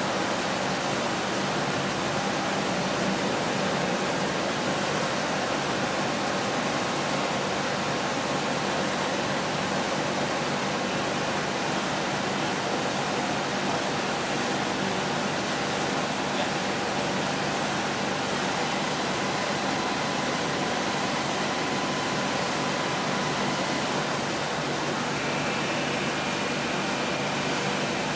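Large CNC vertical boring mill running under power: a steady, even machine noise with faint steady whine tones mixed in, a higher tone joining near the end.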